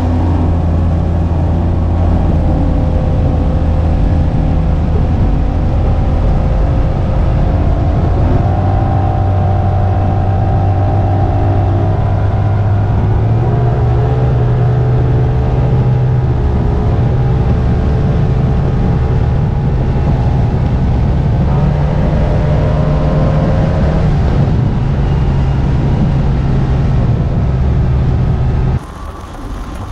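2007 Mercury 250 hp 3.0-litre EFI V6 two-stroke outboard running steadily at speed on a ski boat, over a rush of water. Its note steps up about halfway through and shifts again later. Near the end the sound drops off abruptly.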